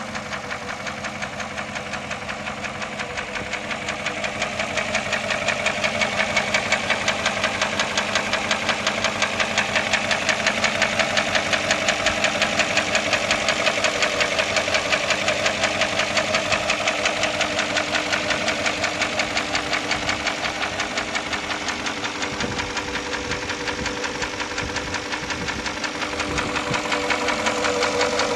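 Porsche Cayenne S V8 engine running with a rapid, regular knocking tick: the abnormal engine noise of this junk car.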